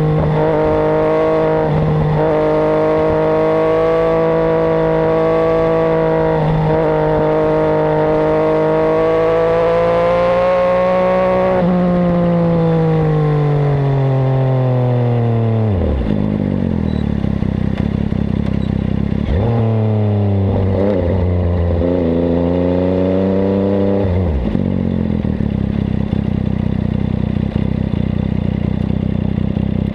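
MV Agusta Brutale 800 three-cylinder engine through its Zero exhaust while riding. The note holds steady at cruising revs with two brief dips. About twelve seconds in, the revs fall away over four seconds to a low note, rise again in a short burst of acceleration with a couple of breaks, then drop back to a low steady running note.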